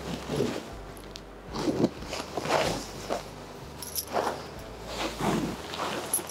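Supernet cotton saree cloth rustling and swishing as it is handled and unfolded, in short strokes about once a second, over a low steady hum.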